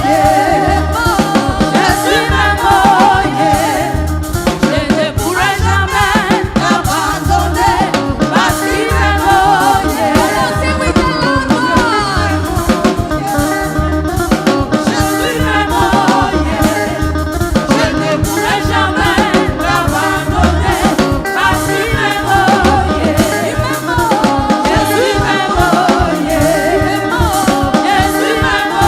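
Gospel praise music: voices singing over a drum kit and bass keeping a steady beat.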